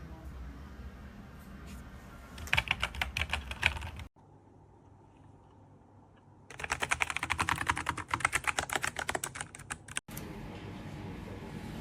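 Typing on a Nuphy Air75 V2 low-profile mechanical keyboard: two bursts of rapid keystroke clicks, the first about a second and a half long and the second about three and a half seconds, with a quiet break between them.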